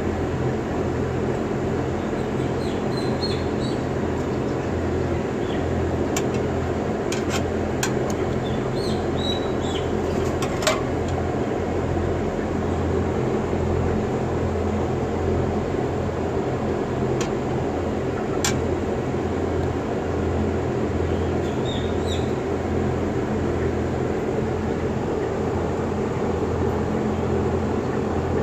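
Steady machine drone of running barn blower fans with a low electrical hum from the energized control panel. A few sharp clicks of a tool on the panel's terminals come in the middle.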